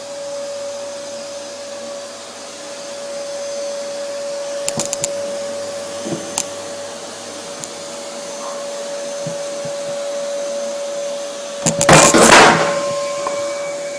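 Numatic Henry canister vacuum cleaner running with a steady whine, with a few light clicks around five and six seconds in. About twelve seconds in comes a loud, brief rushing burst, the loudest sound here.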